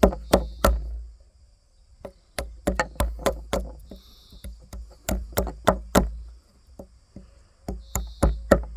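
Kizer Bugai knife blade chopping into a wooden stake in quick runs of sharp strikes, about three a second, with short pauses between runs, as knots and protruding bits are knocked off. Crickets chirp steadily in the background.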